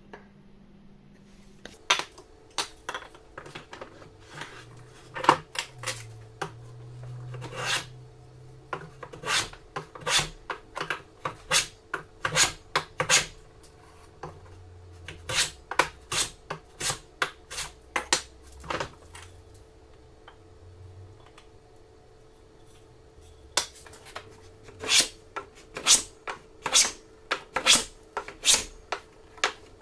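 A hand plane cutting a rebate along the edge of a board in short, quick strokes, about one to two a second, with a pause of a few seconds about two-thirds of the way through.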